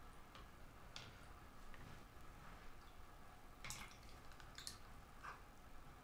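Near silence, with a few faint clicks from a plastic water filter cartridge being held under water in a plastic jug.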